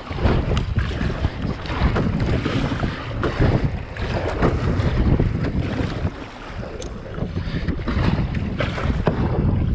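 Wind buffeting the microphone over splashing water as a kayak is paddled hard into a choppy sea, the level surging with the paddle strokes and the chop. Two sharp clicks are heard, one about half a second in and one near seven seconds.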